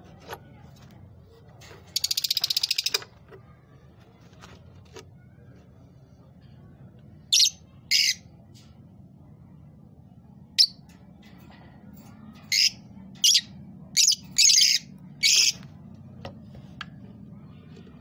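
Lovebirds calling. About two seconds in there is a rapid buzzing chatter lasting about a second. Through the second half come short, sharp, high-pitched chirps, singly and in quick pairs.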